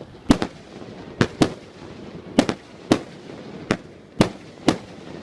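Fireworks display: shells bursting in a run of sharp bangs, about ten in five seconds at uneven intervals, some in quick pairs.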